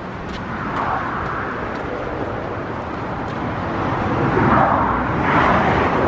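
Highway traffic: the steady rush of passing cars' tyres and engines, growing louder about four seconds in.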